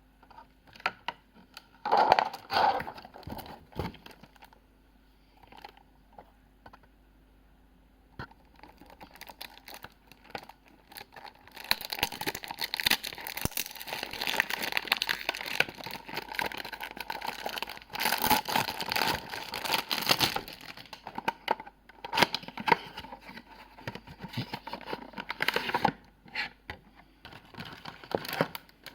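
Perfume packaging being unwrapped by hand: irregular crinkling and tearing of wrapping. It comes in a few short bursts at first and runs almost without a break through the middle.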